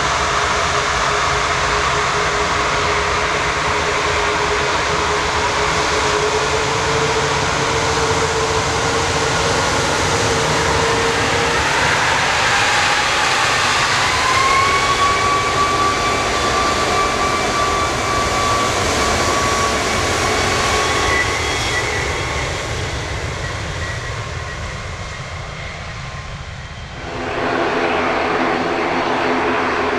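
Airbus A340's four jet engines running as the airliner taxis past close by: a steady rumble with whining tones that rise in pitch about halfway through and then hold steady, fading as the aircraft moves away. Near the end the sound cuts to a louder, steady rumble of a four-engined jet on its takeoff run.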